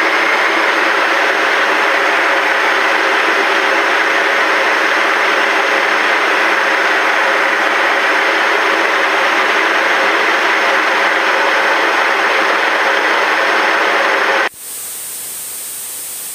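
Steady drone of the Diamond DA42-VI's twin turbodiesel engines heard inside the cockpit: a rushing noise with a hum of several steady tones. About two seconds before the end it cuts off abruptly to a quieter steady hiss.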